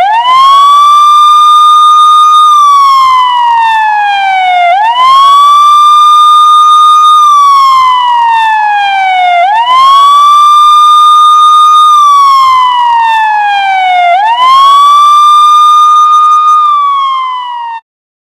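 Police siren on its wail: a tone that sweeps up quickly, holds high for about two seconds, then slides slowly down, repeating about every five seconds. It cuts off suddenly near the end.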